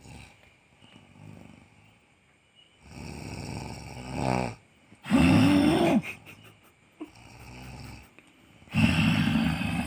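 Snoring: a run of loud snores, each about a second long, one to two seconds apart, with quieter breaths between. The loudest come about five seconds in and near the end, and one just before has a fluttering rattle.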